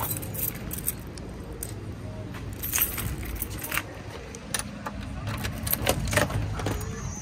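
A bunch of keys jangling and clicking against a door lock and handle, in a series of short, irregular metallic jingles.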